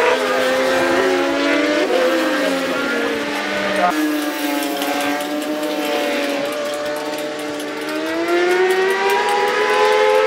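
Supersport racing motorcycle engines running at high revs, the pitch rising and falling as the riders work through the gears in the corners. Two engine notes overlap at first, and the sound switches suddenly to another bike about four seconds in.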